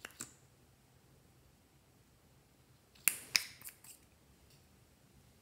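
Plastic lip gloss tube and cap being handled: two small clicks at the start, then a quick run of sharper clicks and taps about three seconds in.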